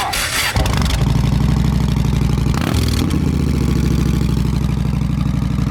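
Motorcycle engine with wrapped exhaust headers catching about half a second in, then idling steadily with a fast pulsing exhaust beat.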